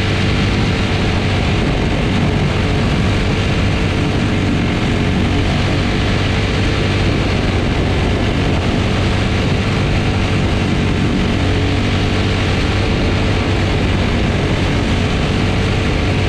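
Quarter midget race car's single-cylinder Briggs & Stratton Animal engine running hard at racing speed, a steady, unbroken drone heard close up from on board the car.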